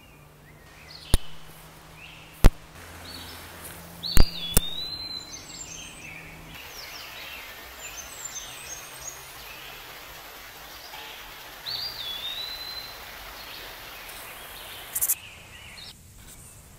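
Small birds chirping and giving short whistled calls that rise and then level off, over a quiet outdoor background. Four sharp clicks fall in the first five seconds.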